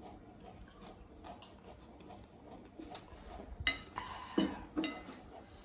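Metal spoon clinking and scraping against glass tableware: faint small clicks at first, then a few sharp ringing clinks in the last two seconds.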